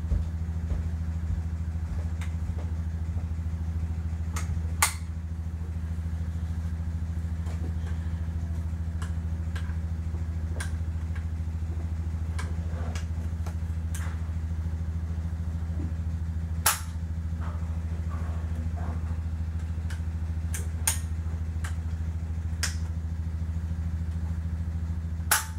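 Clicks and clacks of a Crosman Model 70 CO2 air rifle's bolt and action being worked by hand, with sharper snaps about five seconds in, a little past the middle, and at the very end. A steady low hum runs underneath.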